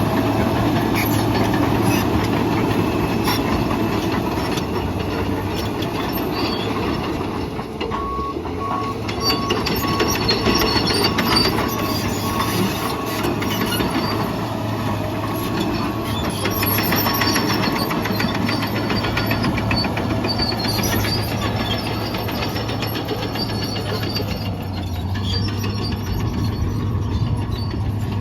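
Case 2050M crawler dozer at work: its diesel engine running steadily under load while the steel tracks clatter and squeal as it pushes dirt, rock and concrete. A run of evenly spaced beeps sounds from about eight to eighteen seconds in.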